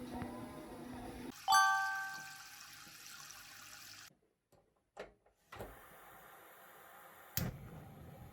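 A single bright chime rings out about a second and a half in and fades over roughly a second. A few sharp clicks follow, the loudest one near the end.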